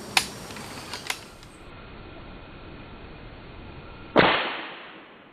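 A single PCP air rifle shot about four seconds in, sudden and loud, with a tail that fades over about a second, preceded by two sharp, lighter clicks in the first second.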